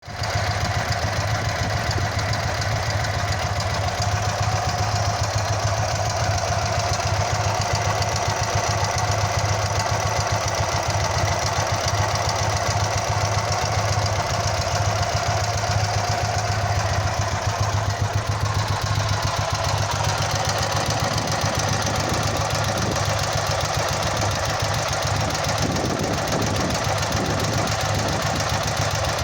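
Ural motorcycle's flat-twin boxer engine running steadily, a fast, even stream of firing pulses.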